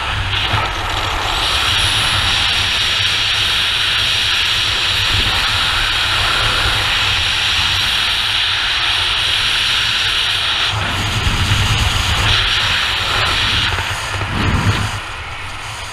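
Wind rushing over the microphone of a helmet-mounted action camera on a fast speedriding descent. It makes a steady loud hiss over low buffeting, and the buffeting swells about two-thirds of the way through and again near the end.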